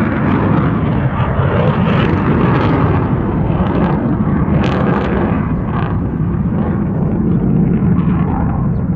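Jet noise from military fighter aircraft flying overhead: a loud, steady, rushing rumble that stays strong throughout.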